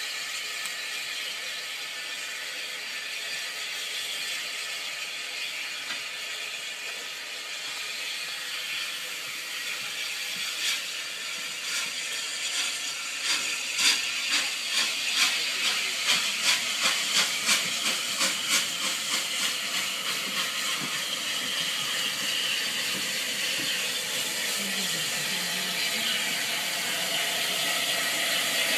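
Unrebuilt Bulleid Battle of Britain class steam locomotive 34070 Manston running light engine, with a steady hiss of steam. About halfway through comes a run of sharp exhaust beats that quicken and then die away. The hiss grows louder as the engine draws near.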